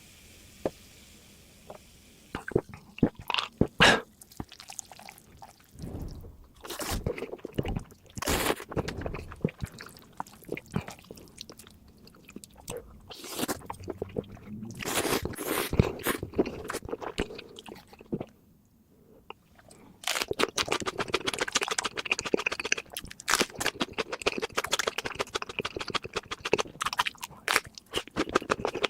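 Close-miked eating: crunchy food bitten and chewed in dense runs of crisp crunches, with a short pause about two-thirds of the way through before the crunching starts again.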